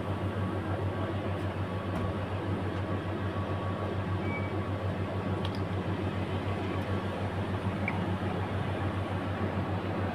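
Air compressor running steadily with a low, fast-pulsing hum, pumping air at a tyre that will not take it. A few faint clicks sound over it.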